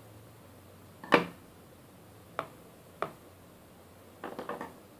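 Metal scissors handled and set down on a table: a sharp clack about a second in, two lighter clicks, then a quick rattle of small clicks near the end.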